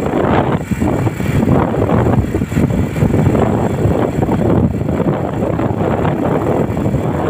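Wind buffeting the microphone of a moving vehicle, a loud, rough, fluttering rush with the vehicle's running noise underneath.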